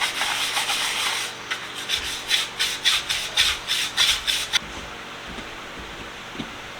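Quick back-and-forth scrubbing of a tin tool case, rubbing grime off the metal, about three strokes a second. The scrubbing stops about four and a half seconds in.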